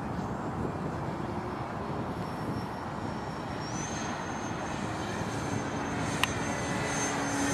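Twin electric ducted fans of a radio-controlled Su-30 model jet: a steady rushing sound with a thin high whine, growing slowly louder as the jet comes closer. The whine steps up in pitch about halfway through as the throttle is advanced. A single sharp click comes near the end.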